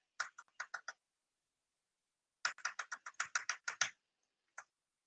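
Computer keyboard keys tapped in quick runs: about five taps in the first second, a fast run of about a dozen a second and a half long starting about two and a half seconds in, then a single tap near the end. The taps page through presentation slides.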